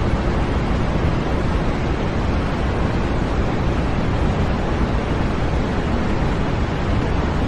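Steady electronic white noise: an even, unbroken hiss with no pitch or rhythm, fuller in the low end than the high.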